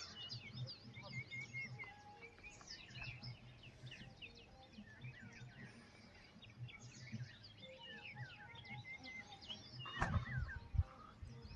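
Several small birds chirping and singing, faint, in many short rapid notes. A couple of sharp bumps about ten seconds in.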